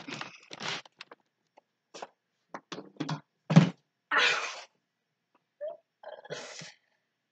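A child's short, scattered non-speech vocal sounds and breaths, with quiet gaps between them.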